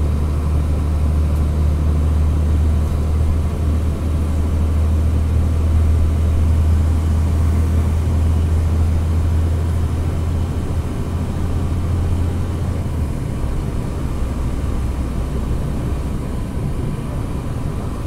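International 3300 school bus's MaxxForce DT inline-six diesel running under way, heard from inside the passenger cabin as a steady low drone with road noise. The drone eases off about two-thirds of the way through.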